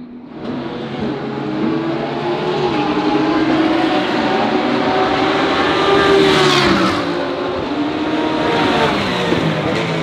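GT3 race car engines at full throttle passing by, their pitch stepping with gear changes. The loudest car goes by a little past halfway, its pitch falling as it passes.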